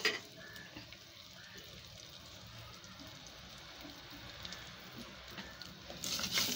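Ghee tempering of mustard seeds, curry leaves, chillies and garlic, with turmeric powder just added, sizzling faintly in a clay pot. There is a short sharp knock right at the start, and the sizzling or stirring gets louder near the end.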